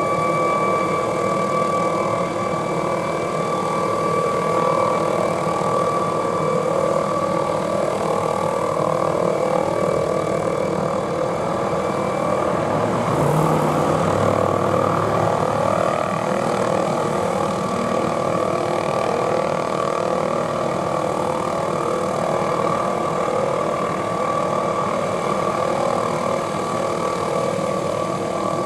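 MD 520N NOTAR helicopter in flight close by: the steady rush of its rotor and ducted tail-boom fan over a high, steady turbine whine, which weakens about halfway through.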